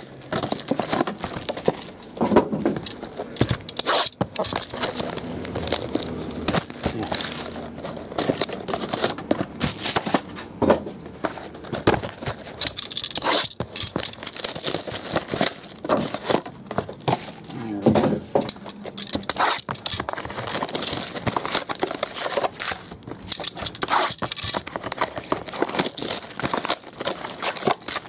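Cellophane shrink wrap crinkling and tearing as sealed trading-card boxes are unwrapped, with the cardboard boxes and packs being handled. There are many small clicks and rustles, irregular and continuous.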